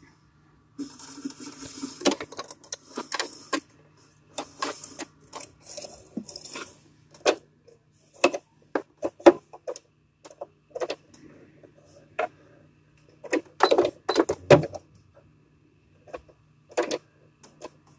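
Electric sewing machine stitching in short stop-start runs, the longest two in the first half, with scattered sharp clicks and taps from the fabric being handled and turned under the presser foot.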